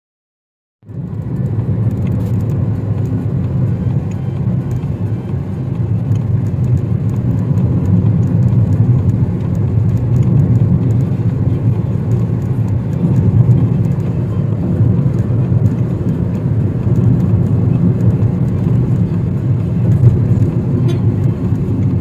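Steady low rumble of a car driving, heard from inside the cabin: road and engine noise that starts about a second in and holds level.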